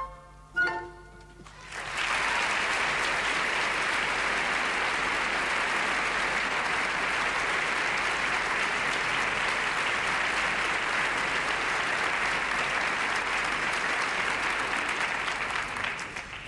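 The orchestra's last notes, then an audience applauding steadily for about fourteen seconds, fading near the end.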